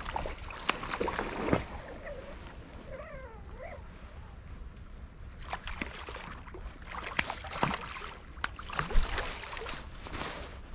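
Water sloshing and splashing with scattered sharp knocks and clicks, a short wavering squeak about three seconds in, and a heavy thump near the end.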